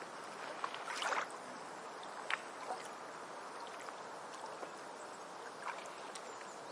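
Shallow water washing on a beach, a steady wash with small splashes and trickles breaking through it, the loudest a cluster about a second in.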